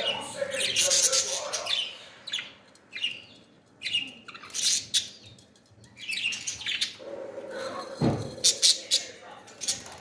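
Pet budgerigars chirping and chattering: quick, sharp high chirps that come in irregular runs, with a lower warbling note underneath at times.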